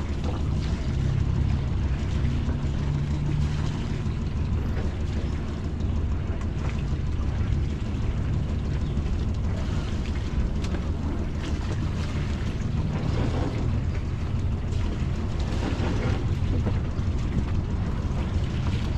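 A sailboat's inboard diesel engine idling steadily at low revs.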